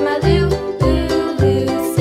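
Cheerful children's background music with a steady beat and a bright melody.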